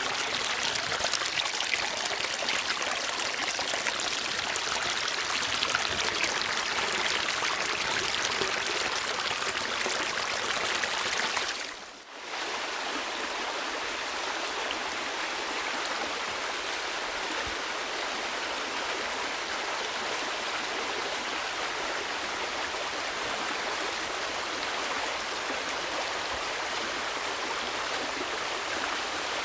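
Steady rushing of a flowing stream. About twelve seconds in it fades out briefly and comes back slightly softer.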